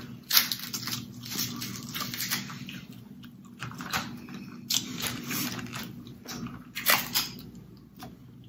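Close-up eating of snow crab: irregular clicks and crunches of crab shell being cracked, with chewing and smacking.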